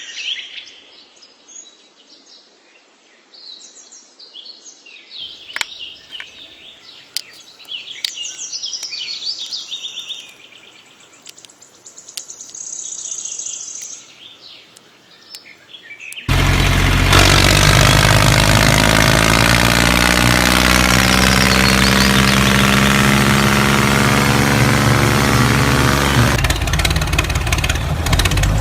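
Birds chirping for roughly the first half. Then, suddenly, a much louder engine sound starts and runs steadily with a deep hum.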